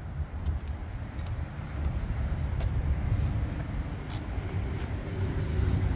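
Steady low outdoor rumble with a few faint clicks. A faint droning hum comes up near the end.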